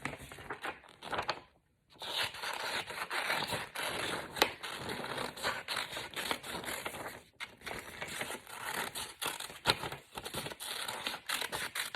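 Scissors cutting through a sheet of paper in a steady run of snips, with the paper rustling as it is turned. There is a short quiet gap about a second and a half in.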